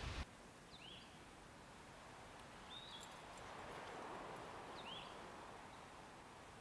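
A bird chirping three times, short high notes about two seconds apart, over a quiet outdoor hiss. Wind on the microphone cuts off suddenly just after the start.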